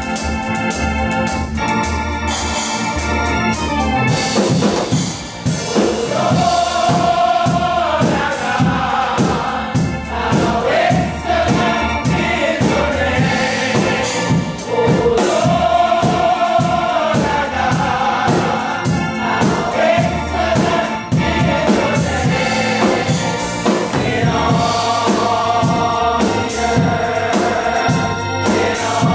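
Gospel choir singing with organ accompaniment and a steady beat. The organ plays alone at first, and the voices come in about four seconds in.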